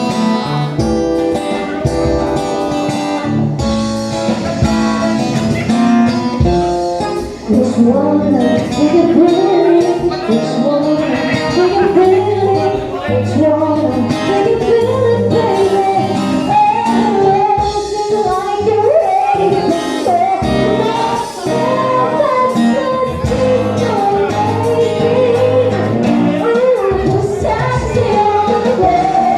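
A band playing with guitar and percussion; a singer comes in about seven seconds in and sings over the band.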